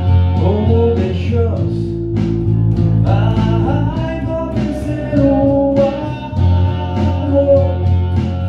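Live band rehearsal: electric guitar and four-string electric bass playing together, the bass holding low notes, with a man singing over them.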